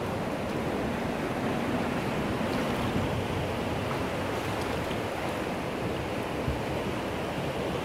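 Steady rushing of a swollen, flood-high river pouring over a riffle, with no breaks or distinct events.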